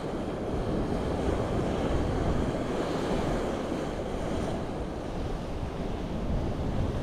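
Sea surf washing steadily on the shore, with wind buffeting the microphone.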